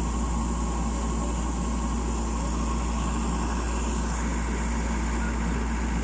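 Yanmar AG600A crawler combine harvester running steadily while its unloading auger discharges threshed rice grain: a constant machine drone with a strong low hum.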